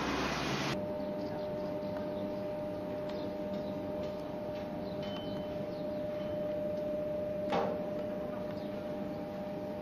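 Steady electric hum of a Cercanías commuter train standing at the platform: one steady tone with fainter tones alongside it, cut by a single sharp click about seven and a half seconds in.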